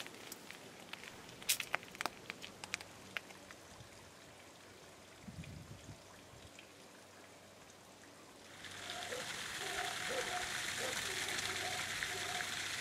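A few faint clicks, then about two-thirds of the way in a steady rush of running water begins and carries on.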